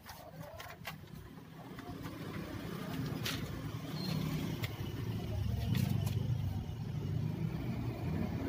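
Sharp plastic clicks and taps as a laptop's keyboard top case is pressed down onto its base, over a low rumble that grows louder from about two seconds in.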